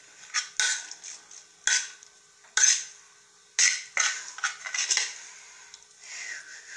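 Metal fork clinking and scraping against a plate while stirring and lifting noodles: about a dozen short, sharp, irregular strokes, with a short falling scrape near the end.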